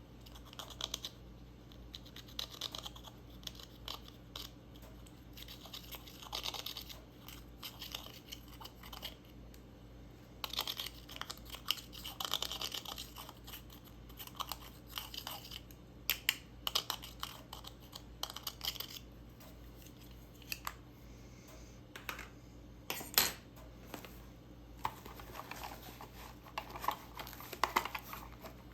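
Glittery slime being squished, pressed and stretched by hand, giving off irregular runs of small sticky clicks and crackles, with a sharper snap about two-thirds of the way through.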